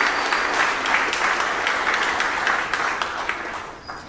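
Applause from a room of people, a dense patter of many hands clapping, fading away near the end. It greets a successful stage separation.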